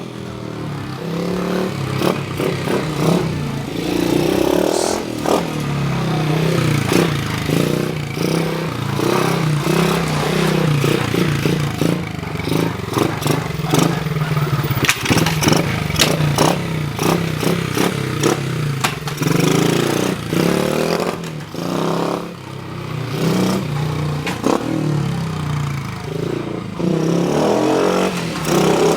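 Metal parts and hand tools clicking, clattering and scraping during reassembly of a Honda Monkey's rear wheel and axle, over a steady low hum.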